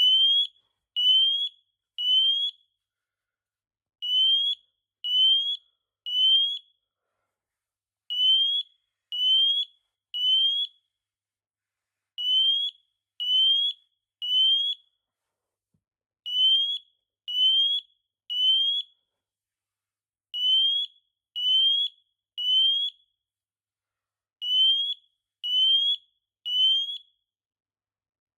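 FireAngel FA6620 optical smoke alarm in full alarm, set off by deodorant spray. It sounds in groups of three short beeps, each sliding up in pitch, with a pause of about a second and a half after each group: the temporal-three (code 3) pattern. This is its smoke-activated tone, which differs from the tone the test and silence button gives.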